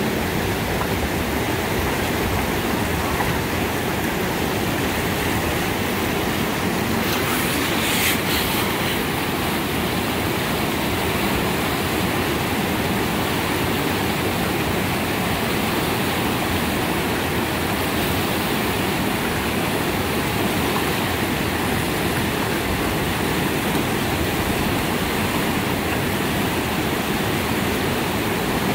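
Whitewater rapids rushing over rocks, a steady full roar of moving water. About seven to eight seconds in, a brief sharper hiss rises above it.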